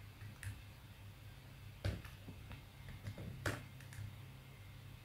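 A few scattered computer keyboard keystrokes, faint sharp clicks a second or so apart, over a steady low hum.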